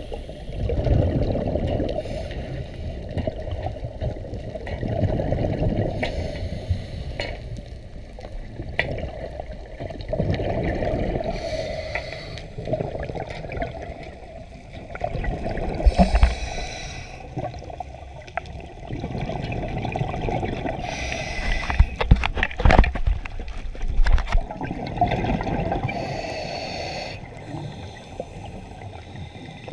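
Scuba diver's breathing through a regulator heard underwater: exhaled bubbles gurgling out in surges about every five seconds, with the hiss of the regulator between some of them. A few sharp clicks come about two-thirds of the way through.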